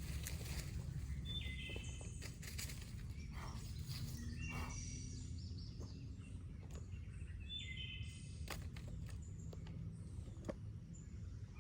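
Birds chirping outdoors, short calls every second or two over a steady low rumble, with a few faint clicks.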